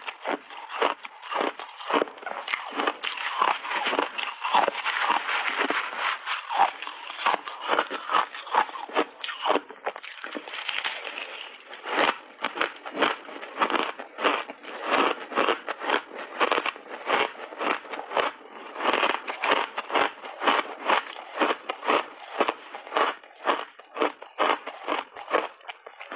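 Close-up crunching of refrozen shaved ice being chewed in big mouthfuls: a fast, unbroken run of crisp, crackly crunches.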